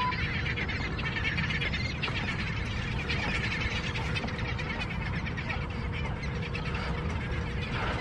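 A flock of seabirds calling over and over in short chirps, above a steady low rumble.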